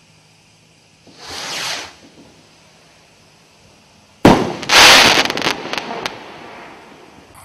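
Firework rocket: a short whoosh as it lifts off about a second in, then a sharp bang as the shell bursts about four seconds in. A loud spray of crackling follows and thins out into a few separate crackles.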